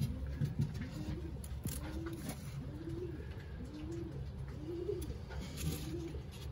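Racing pigeon cooing: a series of about seven short coos, each rising and falling in pitch, roughly one every three-quarters of a second, with a few faint clicks between them.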